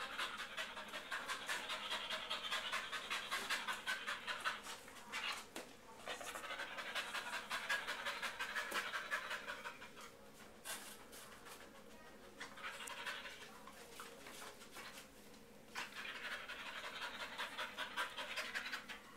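Dog panting fast and steadily, with a few short quieter pauses partway through. The panting may come from heat or stress.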